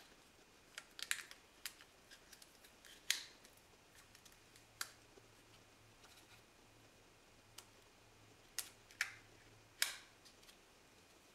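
Scattered sharp clicks and snaps of a phone and thin plastic mount being handled and strapped down with elastic bands, the loudest a cluster of three near the end.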